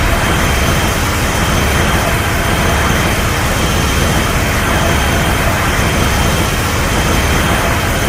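Destoroyah monster sound effect: a loud, steady, jet-like rushing noise that holds unchanged throughout, with a faint high whine running through it.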